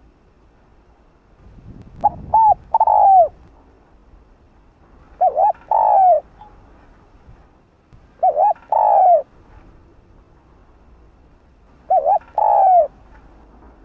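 Spotted dove cooing: four calls about three to four seconds apart, each two short notes followed by a longer, falling note.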